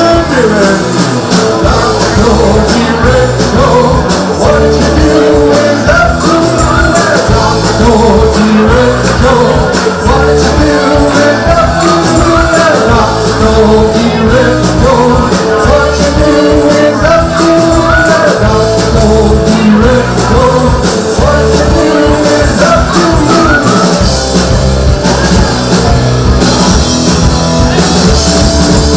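A rock band playing loudly live on stage, with drum kit and guitars under a melody of held notes.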